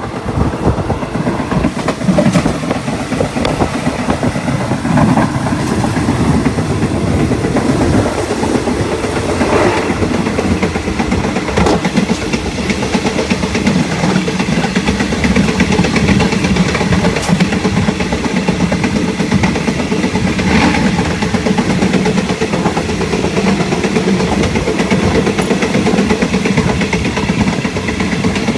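Passenger train running along the track, heard from inside a carriage with open windows: a steady rumble of wheels on rail, with a few sharp clacks at rail joints.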